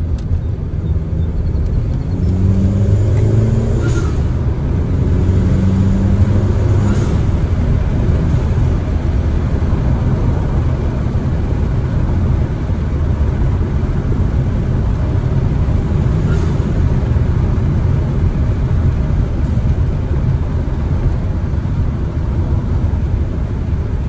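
Turbocharged Volkswagen four-cylinder with its exhaust cutout open after the downpipe, heard from inside the cabin. It pulls hard twice in the first several seconds, and each pull ends in a short hiss from the diverter valve as the throttle lifts for the shift, the 'sneeze'. Then it cruises with a steady engine drone and road noise, with one more brief hiss about two-thirds of the way through.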